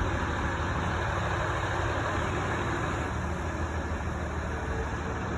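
Crane's diesel engine running steadily with a low, even drone.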